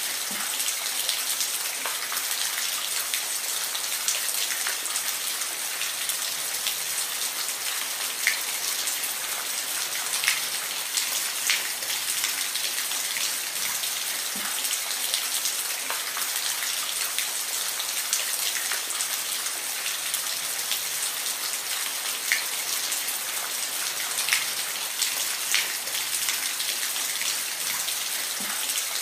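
Steady rain falling, a dense even hiss, with scattered individual drops striking close by as short sharp ticks every few seconds.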